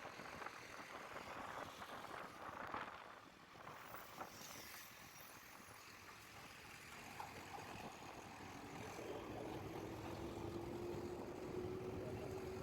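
Road traffic noise, with a vehicle's engine note coming in about two-thirds of the way through and rising slightly in pitch as it gets louder.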